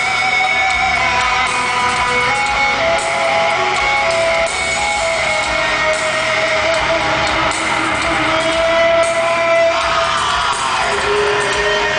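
Live heavy rock band playing, with electric guitars holding sustained notes over the band, heard from the crowd in a large hall. About ten seconds in, a note slides down in pitch.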